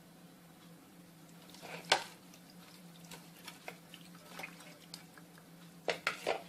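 Hands rubbing a marinade into a whole raw chicken in a glass bowl: soft wet handling with small clicks, a sharp knock about two seconds in and a quick run of three knocks near the end. A steady low hum runs underneath.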